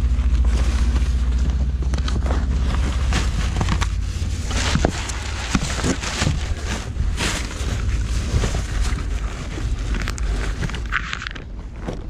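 Rummaging through trash inside a dumpster: plastic bags crackling and items being shifted and knocked about in short, irregular bursts, with a low rumble over the first few seconds.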